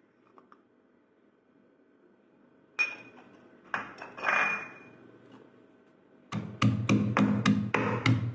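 Metal kitchen utensil clinking against a cooking vessel: a sharp clink with a short ringing tone about three seconds in, then a second, longer ringing clink and scrape about a second later. Rhythmic background music comes back in near the end.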